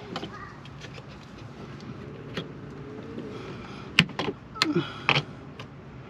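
Hard plastic clicks and knocks from working a stubborn electrical connector loose behind a Ford Bronco's rear interior trim panel, with a sharp snap about four seconds in and a quick run of clicks just after it.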